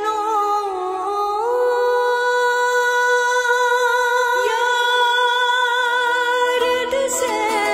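Soundtrack music: a voice humming long, held notes that glide to a new pitch every few seconds, with no beat or bass beneath it.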